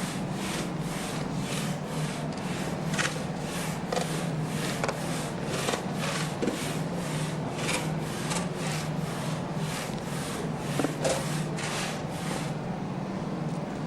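Hand saw cutting through wood in even back-and-forth strokes, about two to three a second, stopping near the end, over a steady low hum.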